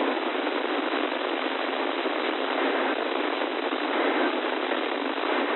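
Steady hiss of FM radio static, limited to the voice range, from a software-defined radio receiver tuned to a weather radio frequency with no clear signal coming in.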